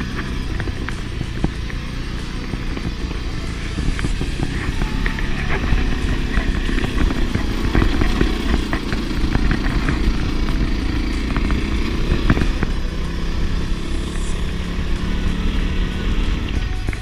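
Honda CRF250 Rally's single-cylinder four-stroke engine running under throttle while riding over rough mountain trail, with frequent sharp knocks and rattles. It gets louder about four seconds in.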